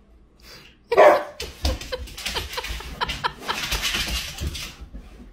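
Golden retriever barking at a rubber chicken toy: a loud first bark about a second in, then a quick run of short barks, about three a second.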